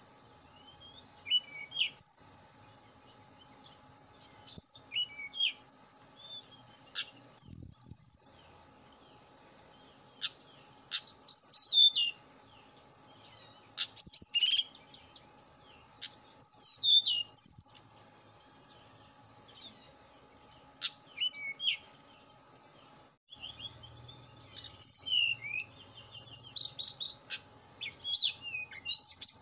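Tledekan gunung, a blue flycatcher, singing: short phrases of high, quick whistled notes that slide up and down, coming every couple of seconds. A quieter gap falls in the middle, and a busier run of notes comes near the end.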